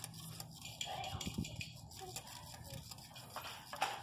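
Scattered light taps and knocks of children's hammers on wooden posts, coming more often near the end, with children's voices faint in the background.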